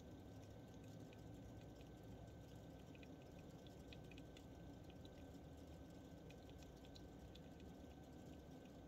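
Faint wet clicks and smacks of a baby red squirrel suckling milk from a feeding syringe, scattered and thickest in the middle, over a low room hum.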